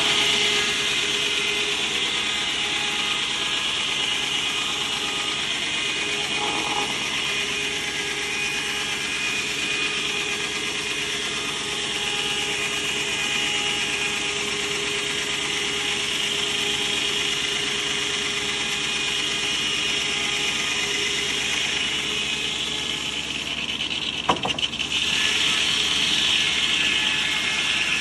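Belsaw circular sawmill blade ripping a 2x12 board from a pine cant: a steady sawing hiss and whine. About 24 seconds in there is a sharp knock as the cut ends, and the blade then runs free with a louder, higher whine.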